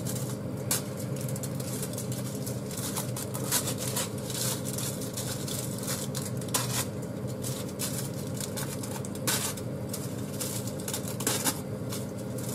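Crumpled aluminium foil crinkling and crackling as it is handled, in short irregular crackles, over a steady low hum.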